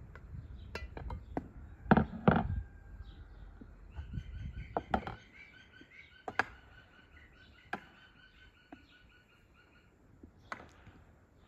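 A spoon and dishes knocking against an enamel bowl, a few sharp knocks, the loudest two about two seconds in, then scattered single knocks. From about four seconds to ten seconds in, a small bird chirps over and over in quick succession.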